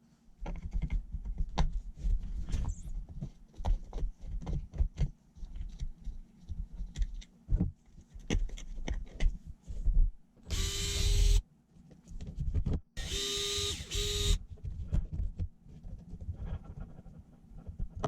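Small tools and metal parts clicking and knocking while the rear suspension links of an RC monster truck are fitted, with two short runs of a small electric power driver, about ten and thirteen seconds in.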